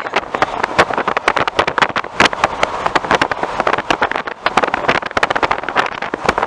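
Car driving along a country road, with wind buffeting the microphone at an open window in rapid, irregular crackling gusts over the road noise.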